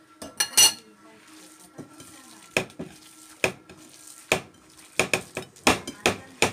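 A mixing bowl knocking and clinking against the countertop as a potato and meat filling is mixed in it by hand: about ten sharp knocks at uneven intervals, closer together near the end.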